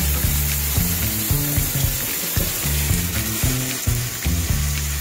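Background music with a stepping bass line, over a steady hiss.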